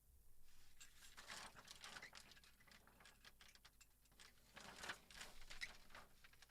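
Faint, irregular clicks, taps and light scraping of small parts being handled, as in working on a flat-screen TV's panel and cables.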